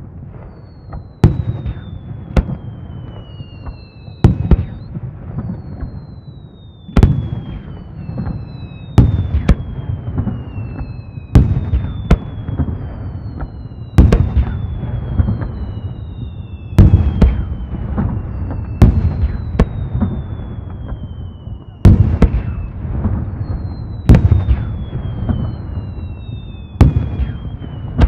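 Aerial firework shells bursting with sharp bangs every two to three seconds, each trailing off in an echo. Several high whistles sliding downward in pitch, each about a second and a half long, run over the bursts.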